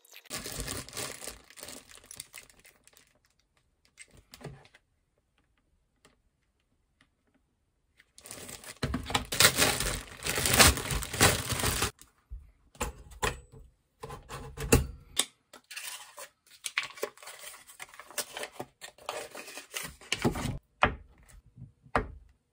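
Plastic bread bag and foil butter wrapper crinkling and rustling, with short clicks and knocks as slices go into a pop-up toaster and a knife cuts butter on a wooden board. The loudest rustling comes in one stretch of a few seconds midway, after a quiet gap.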